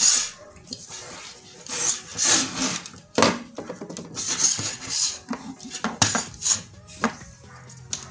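Handling noise from wires, a screwdriver and small parts being moved about on a tabletop: irregular rubbing and scraping with light clicks and a few sharp knocks.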